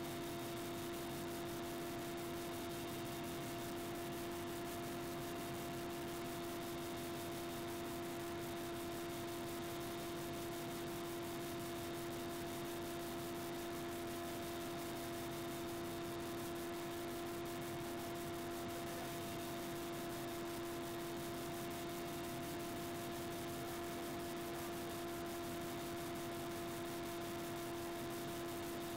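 Steady helicopter cabin noise: an even hiss with a constant mid-pitched whine that does not change.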